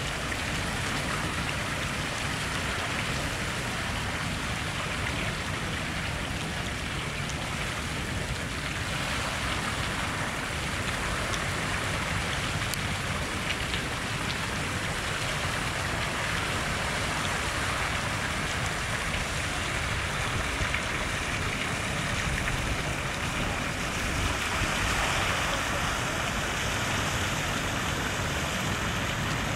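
Water leaking through the gates of a concrete dam, spattering and splashing down the dam face into the river: a steady rain-like spatter over a constant rush of water.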